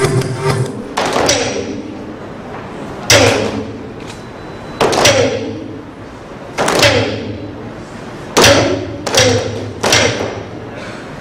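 Single heavy drum strokes, one about every two seconds, each ringing out with a dropping pitch; near the end three come in quicker succession.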